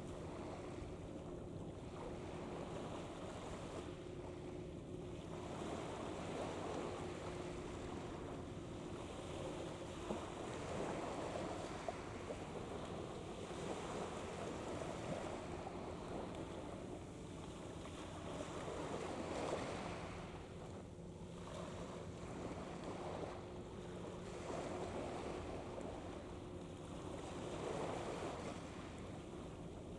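Wind gusting on the microphone and water washing at the shore, swelling and easing every few seconds, with a faint steady low hum underneath.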